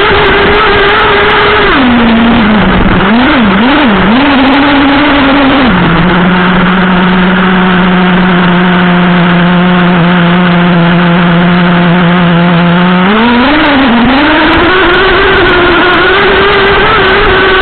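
Traxxas Revo 3.3's two-stroke nitro glow engine, heard close up from the truck itself: running at speed, dropping back about two seconds in with a couple of short blips of throttle, then idling steadily for several seconds while the truck stands still, before revving up again and running at speed to the end.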